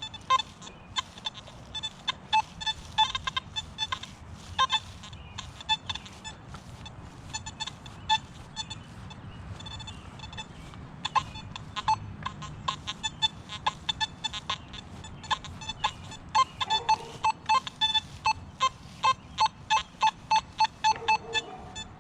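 Nokta Simplex+ metal detector sounding short electronic beeps as the coil sweeps over targets. The beeps are irregular at first and become a quick, steady run of about three a second near the end, with a few lower-pitched tones among them.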